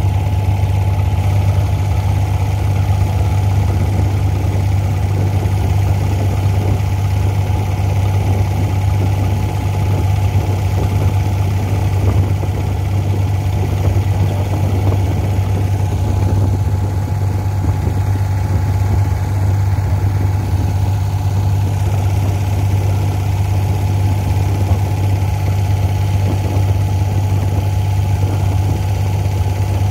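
Inboard diesel engine of a wooden abra water taxi running steadily under way: a loud, even, low drone that does not change.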